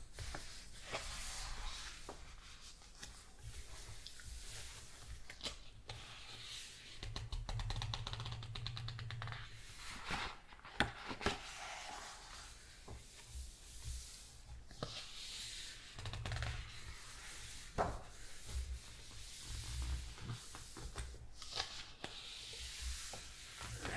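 Thick pages of a large hardcover coffee-table book being turned and smoothed by hand: paper rustling and swishing in uneven swells, with a few sharp clicks as pages are handled.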